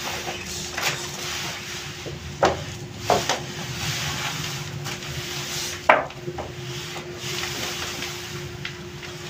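Gloved hands pulling and folding a mass of patisa (soan papdi) sugar strands on a plastic sheet: rubbing and rustling, with several sharp knocks, the loudest about six seconds in. A steady hiss and a faint low hum run underneath.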